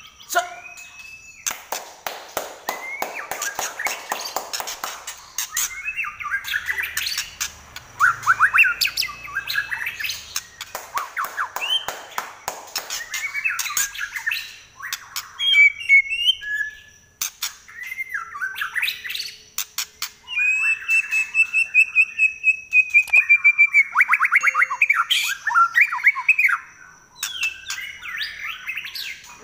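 White-rumped shama singing a long, varied song of whistled phrases broken by fast trills and harsh rattling bursts, with one long run of rapid, even notes about two-thirds of the way through. A faint steady high whine lies under the song.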